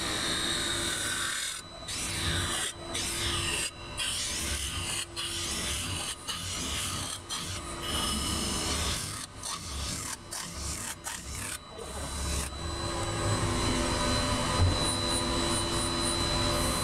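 Metal spinning lathe: a forming roller rubbing and scraping against a spinning sheet-metal dome, with a steady high whine under the scraping. The sound cuts out briefly many times during the first two-thirds, then runs unbroken near the end.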